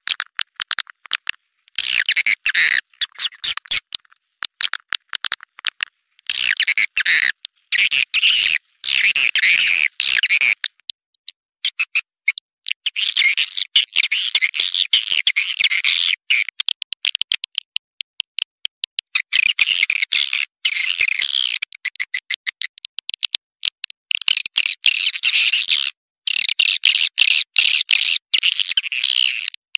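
Swiftlet twittering calls, a lure recording for calling swiftlets: dense, rapid chirps in bursts of one to three seconds that start and stop abruptly, with short gaps between.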